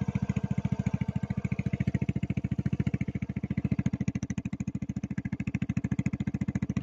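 Yamaha Mio GT scooter's single-cylinder four-stroke engine idling through a short aftermarket exhaust fitted with a DB killer silencer insert: a steady, even exhaust pulse with no revving.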